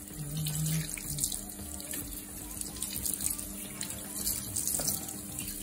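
Water from a hand-held shower running steadily into a bathtub, splashing over feet as they are washed by hand.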